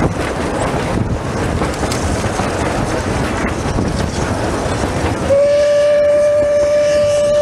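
Running noise of La Trochita narrow-gauge steam train's moving carriages. About five seconds in, the locomotive's steam whistle starts one long, steady blast.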